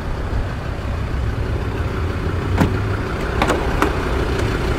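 Land Rover Discovery II engine idling steadily with a low rumble, with a few light clicks in the second half.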